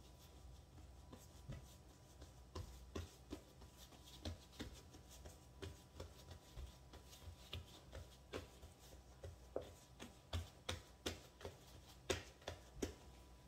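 Fingertips pressing and patting soft ciabatta dough flat against a floured granite countertop: faint, irregular soft taps, coming more often in the second half.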